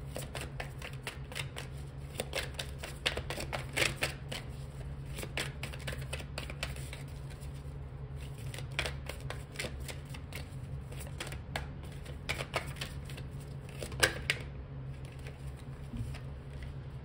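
A deck of tarot cards being shuffled by hand: a long run of quick, irregular card flicks and slaps, with one sharper snap about 14 seconds in.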